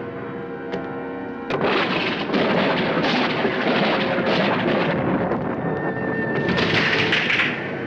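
Thunderstorm: a steady rush of storm noise with a louder crash of thunder about six and a half seconds in, under dramatic music with long held notes.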